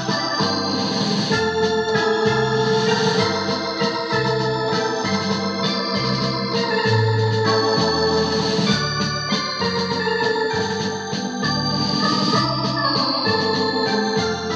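Technics KN7000 arranger keyboard played in an organ voice: a melody over held chords, with a bass line that repeats about once a second.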